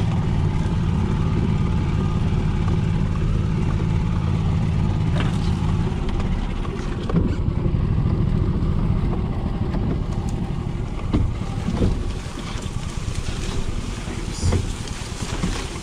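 Golf cart running along a rough, overgrown trail, with a steady motor hum that eases off about six seconds in. Scattered knocks and scrapes follow as branches and brush brush against the cart.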